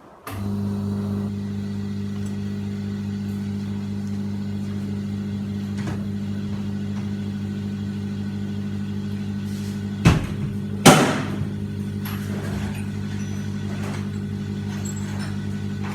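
A motorised machine switches on just after the start and runs with a steady low hum. Two loud clanks come about ten and eleven seconds in.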